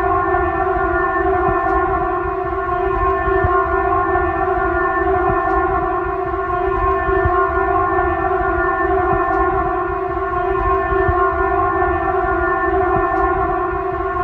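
A siren holding one steady pitch without rising or falling, with a low rumble underneath.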